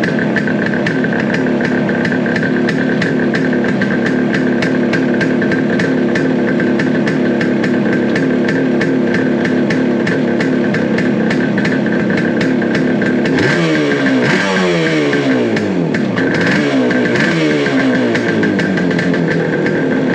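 1971 Suzuki T350's two-stroke parallel-twin engine idling steadily, then revved in a few quick throttle blips that fall back to idle about two-thirds of the way through.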